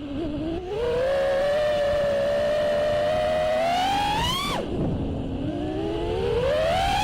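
Brushless motors of a 5-inch FPV freestyle quadcopter (iFlight Xing 2206 2750kv with T-Motor 5143 props) whining, recorded by the onboard camera. The pitch rises and holds with the throttle, climbs to a peak about four and a half seconds in, drops sharply as the throttle is cut, then climbs again.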